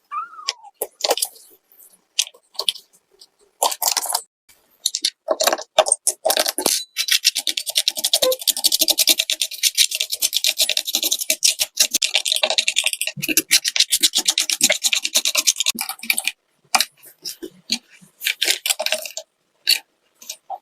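A brush scrubbing plastic keyboard keycaps with rapid back-and-forth strokes. It starts as scattered strokes, becomes a continuous fast scrubbing for several seconds in the middle, then goes back to scattered strokes near the end.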